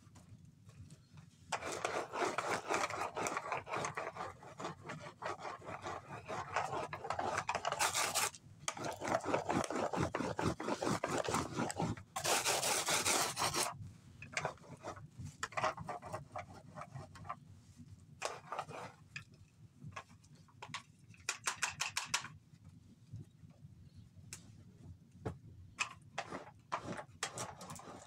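A hand tool scraping over a hard surface. Long continuous passes fill the first half, then it breaks into shorter separate strokes.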